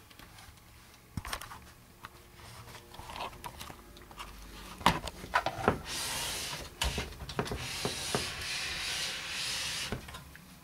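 Handling noise: rubbing and scraping with a few scattered clicks and knocks, turning into a steadier rubbing hiss from about six seconds in.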